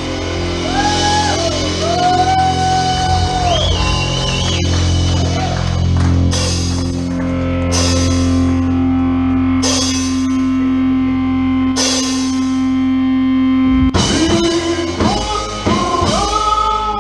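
Live rock band playing an instrumental passage with electric guitar and drum kit. Partway through, the band holds one low chord, punctuated four times by short cymbal-crash accents, then drops back into the full groove near the end.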